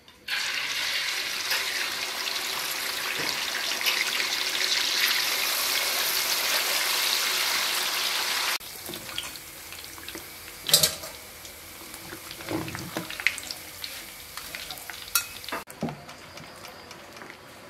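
Small fish deep-frying in a wok of hot oil: a loud, steady sizzle that cuts off suddenly about eight and a half seconds in. After that, quieter clinks and scrapes of a metal utensil, with a spoon stirring a mixture in a glass bowl near the end.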